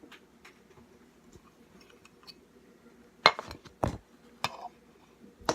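Hard objects being handled and set down on a table: faint small clicks, then two sharp knocks about half a second apart a little past three seconds in, and a lighter knock after them.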